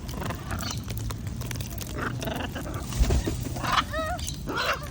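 Wild macaws squawking: a series of short, harsh calls with a brief wavering call about four seconds in.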